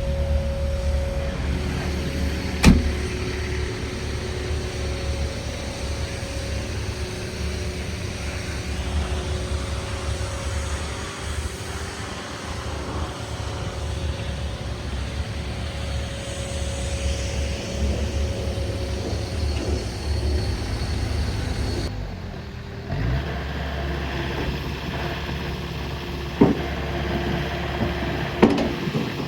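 Kubota KX080-4A2 excavator's diesel engine running steadily, with a sharp click a few seconds in and two more near the end. The sound shifts abruptly about three quarters of the way through.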